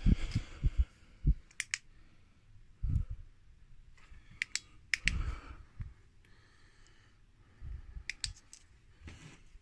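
Irregular low thumps and short, sharp clicks from someone moving about a cluttered room: footsteps and small knocks against objects. The clicks come in small clusters near the start, around halfway and near the end.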